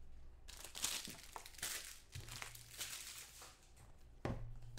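Crinkling and rustling of foil trading-card pack wrappers and a card box being handled, in several short bursts.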